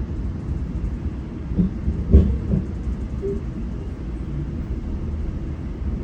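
GO Transit commuter train running along the track, a steady low rumble with a few knocks about two seconds in.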